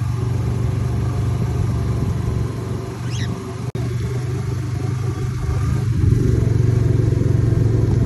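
Vehicle engine running steadily while driving, louder from about six seconds in, with a short high parrot chirp about three seconds in and a momentary drop-out just before four seconds.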